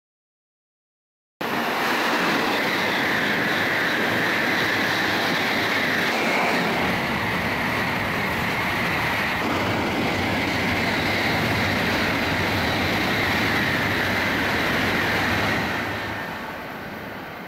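Silence for about a second and a half, then a Series N700A Shinkansen passing at full speed: a loud, steady rushing noise that starts abruptly. Near the end it drops to a quieter rumble.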